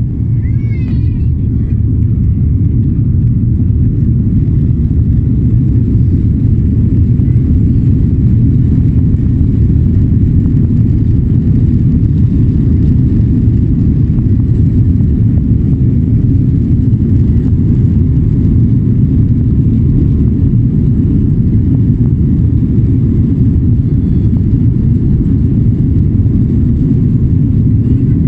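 Loud, steady low rumble of an airliner's engines and airflow heard inside the passenger cabin, building slightly over the first couple of seconds and then holding.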